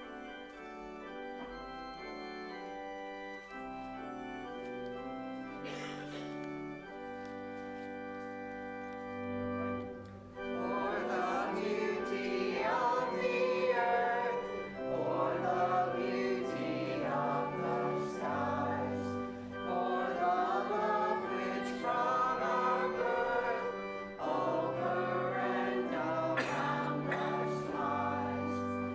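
Organ playing sustained chords, joined about ten seconds in by a choir singing with the organ accompanying.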